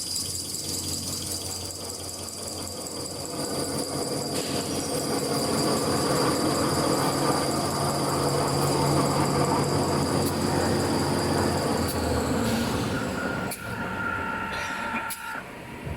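Toilet paper and kitchen towel roll making machine running with a steady high whine and mechanical clatter; the whine cuts out about twelve seconds in, leaving a different lower hum and scattered clicks.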